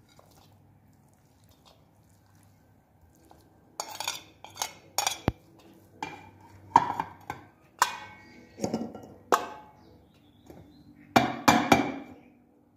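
Metal spoon clinking and scraping against a metal bowl while mixing cooked buckwheat into minced meat and onion. The clinks and scrapes start about four seconds in and come in a quick irregular string.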